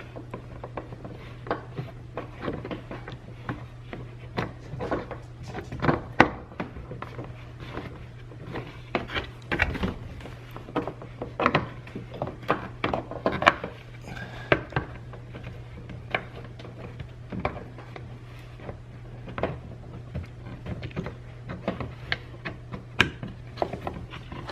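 Irregular small plastic clicks, taps and knocks of hands fitting an LED turn-signal bulb and its socket back into the housing behind a car's front bumper, over a steady low hum.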